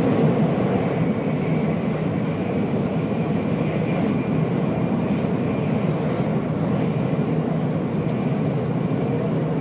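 Steady rush and low rumble of a Nozomi Shinkansen bullet train running at speed, heard from inside the passenger cabin, with a faint steady high whine.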